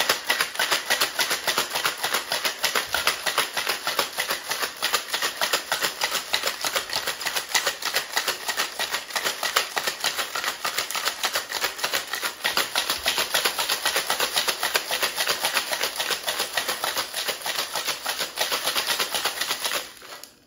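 Metal cocktail shaker shaken hard with ice and margarita mix inside: a rapid, steady clatter of ice against the metal that stops suddenly near the end.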